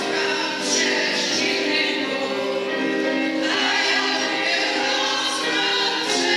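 Women's vocal ensemble singing a Polish folk song together, unaccompanied, with sustained held notes.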